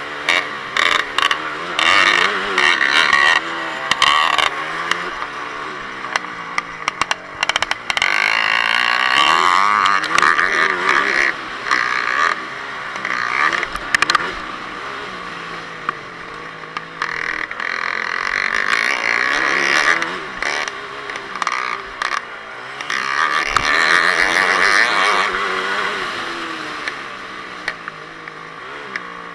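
Yamaha WR250F dirt bike's single-cylinder four-stroke engine revving up and dropping back again and again as it is ridden hard round a motocross track, with frequent sharp knocks and clatter over the engine.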